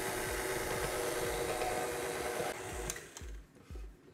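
Stand mixer motor whirring steadily as its paddle works a stiff craquelin dough of butter, sugar, flour and almond flour. The motor is switched off about two and a half seconds in and winds down, leaving a few soft knocks.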